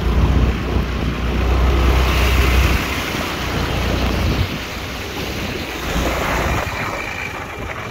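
Wind buffeting the microphone of a rider on a moving scooter, with road and engine noise underneath; a heavy low rumble eases off about four and a half seconds in.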